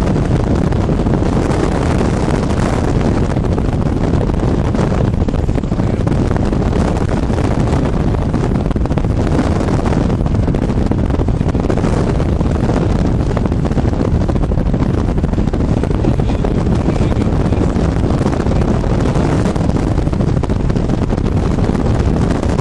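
Strong wind buffeting the microphone: a loud, steady rumbling rush.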